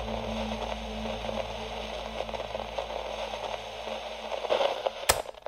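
Crackling radio-style static with a faint low hum, a glitch noise effect. A sharp click comes about five seconds in, and the static cuts off right after.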